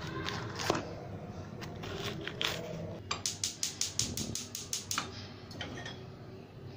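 A few knife strikes chopping vegetables on a board. About three seconds in, a gas stove's spark igniter clicks rapidly, about six clicks a second for two seconds, until the burner lights.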